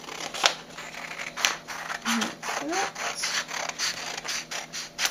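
Scissors snipping through a sheet of A4 paper: a sharp click about half a second in, then a run of quick snips, about three a second, as the blades work along the cut.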